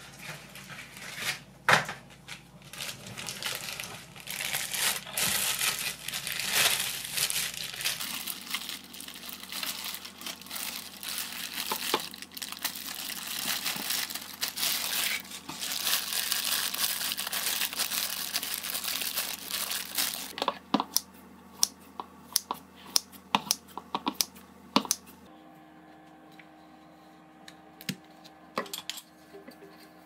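Crinkling and rustling of disposable plastic gloves and paper wrapping as a grilled whole chicken is pulled apart by hand, dense for about the first twenty seconds. It then gives way to scattered light clicks and taps.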